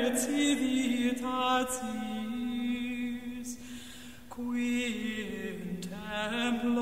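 Slow sung chant: a voice holding long notes that step up and down in pitch, with a short lull about four seconds in.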